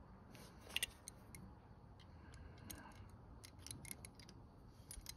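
Faint scattered clicks and light taps from a metal part and tools being handled, close to near silence, with a louder pair of clicks about a second in.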